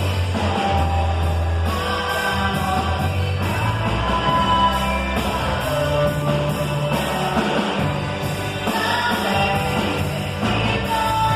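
A band playing a song with a singing voice over bass and drums, with a steady beat.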